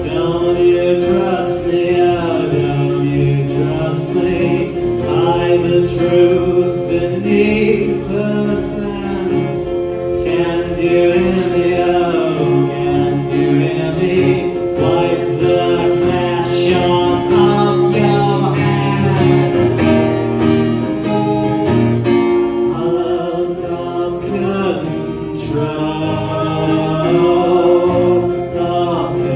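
Live acoustic rock song: a woman and a man singing together over an acoustic guitar.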